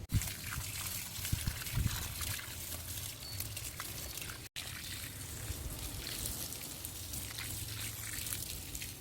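Water pouring and trickling steadily, with fine splashing crackles. It breaks off for an instant about four and a half seconds in, then carries on the same.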